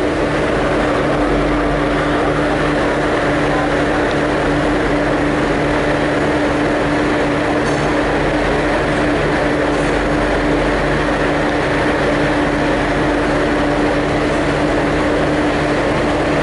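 V/Line N-class diesel-electric locomotive running as it moves slowly in, a loud steady drone with a constant hum from its engine and AC generators.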